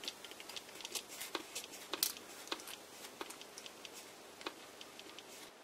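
Oil being squirted from a metal oil-can spout into a small brass wick-oiler reservoir packed with wool: a scatter of faint, irregular clicks and ticks.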